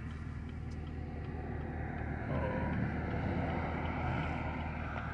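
Steady low engine and road noise inside the cabin of a Chevrolet Camaro SS's V8 as it drives along, swelling slightly about two seconds in.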